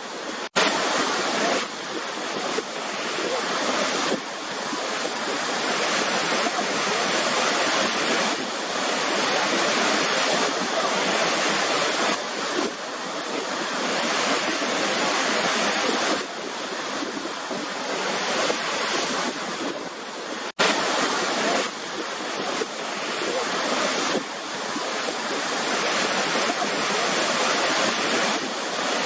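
Waterfall: falling water rushing steadily, swelling and easing slightly every few seconds. The sound cuts out for an instant twice, about half a second in and again about twenty seconds in.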